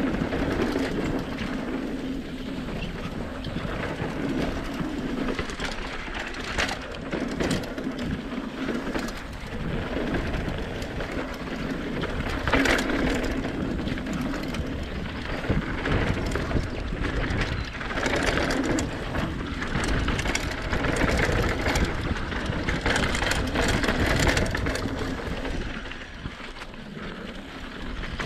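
Mountain bike rolling down a dirt flow trail: a steady rush of tyre noise, with wind rumbling on the microphone and scattered knocks and rattles from bumps in the trail.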